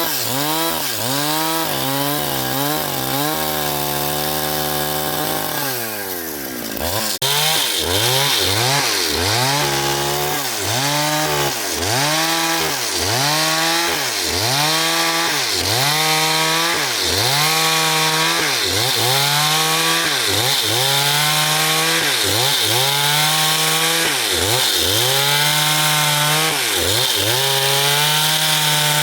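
Engine-driven saw cutting a large log into boards. The engine's pitch dips and recovers in a steady rhythm, about three times every two seconds, as it bogs under the cut. It holds a steady pitch for a couple of seconds around four seconds in, then drops, and a sharp click comes about seven seconds in before the rhythm resumes.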